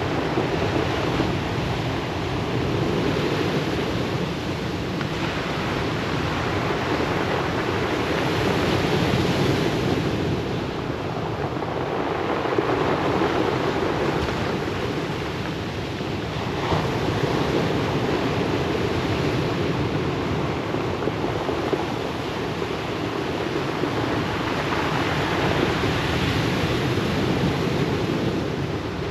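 Ocean waves breaking and washing on a pebble beach, a continuous rushing that swells and eases every few seconds, with some wind on the microphone.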